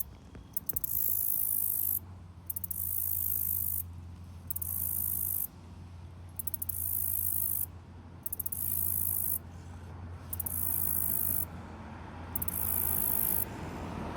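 An insect stridulating by rubbing its wings together: a high-pitched buzz in repeated bouts of one to two seconds, each starting with a few quick stutters, broken by short pauses.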